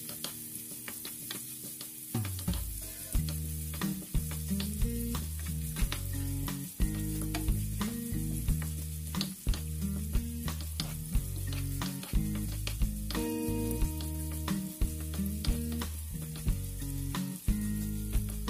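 Julienned carrots and garlic sizzling in oil and butter in a nonstick frying pan, stirred with a wooden spoon that clicks and scrapes against the pan over and over. Background music with a stepping bass line plays underneath.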